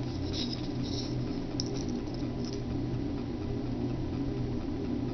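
A steady machine hum, typical of a motor running in a woodworking shop, with a few faint clicks in the first couple of seconds as small wooden pieces are handled.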